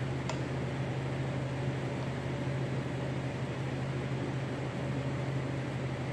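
Steady low mechanical hum under an even hiss, with one faint click shortly after the start.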